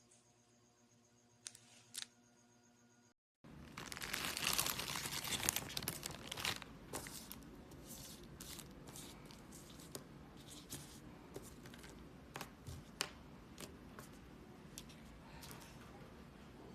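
Plastic packaging crinkling and tearing as it is handled, loudest for a few seconds after a sudden start, then lighter rustling with scattered sharp clicks and taps.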